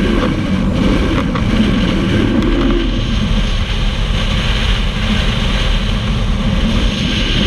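Steady wind rush buffeting a microphone held outside the window of a moving pickup truck, mixed with the truck's road and engine noise.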